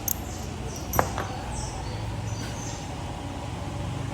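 A small metal engine part, such as a valve, gives one sharp click about a second in as it is handled. Lighter ticks and faint high chirps come with it over a steady low hum.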